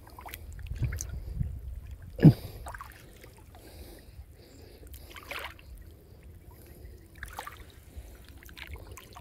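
Water splashing and dripping as a gill net is hauled up out of a canal by hand, with a low steady rumble of water and a few sharp splashes, the loudest about two seconds in.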